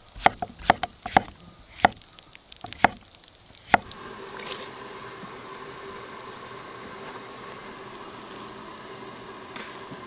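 A knife chopping through hawkswing (scaly hedgehog) mushrooms onto a wooden cutting board: several sharp knocks at an uneven pace for the first four seconds. Then, after a cut, a steady hiss with a low hum from a camp stove burning under a stockpot of mushrooms.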